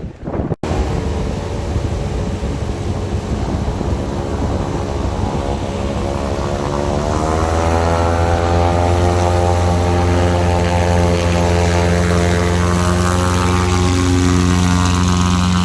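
Airboat's Holley-carbureted Chevy 350 small-block V8, direct-driving its propeller, running with a loud rush of propeller air. About seven seconds in, the engine speeds up and holds at a higher, louder pitch.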